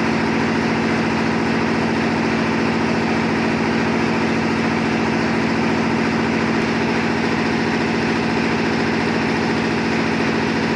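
An engine running steadily at idle, with an even, fast pulsing beat and a strong hum; it cuts off abruptly at the end.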